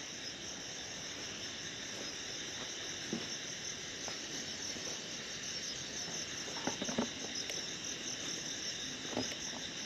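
Steady chorus of crickets chirring, with a few faint crunches of footsteps on dry leaf litter about three, seven and nine seconds in.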